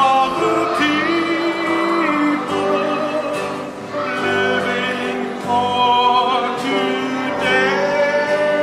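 A live vocal group singing a song, with long held notes that waver in pitch.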